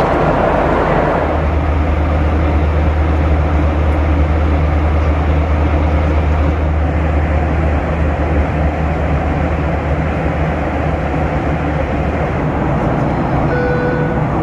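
Steady cabin noise inside a Boeing 737-800 in flight: airflow over the fuselage and the hum of its CFM56 engines, with a strong low rumble that grows a little about a second in. A short chime sounds near the end.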